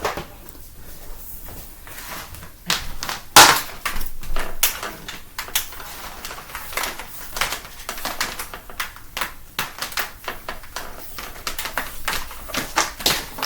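Irregular clicks, knocks and rattles of a vacuum cleaner being handled and set down, with no motor running, and one louder knock about three and a half seconds in.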